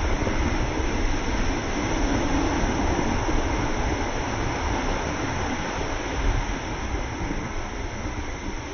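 Ocean surf breaking and washing ashore, a steady rushing noise with a heavy low rumble.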